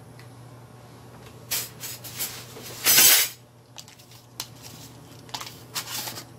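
Kitchen utensils and cookware clattering and clinking in short bursts over a low steady hum, with the loudest clatter about three seconds in.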